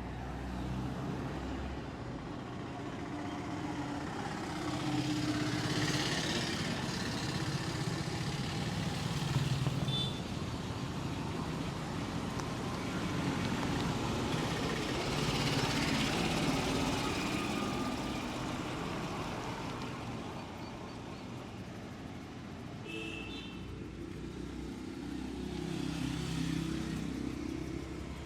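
Street traffic: a steady hum of engines with vehicles passing, the noise swelling and fading every ten seconds or so.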